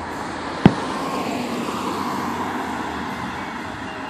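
A single sharp firework bang about half a second in, over the steady rush of road traffic.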